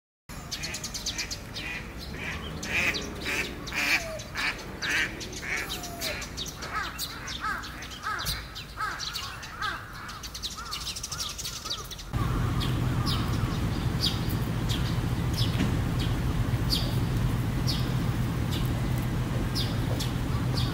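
Outdoor birdsong: birds calling over and over, several short calls a second. About twelve seconds in, the sound cuts to a steady low hum with occasional short bird chirps over it.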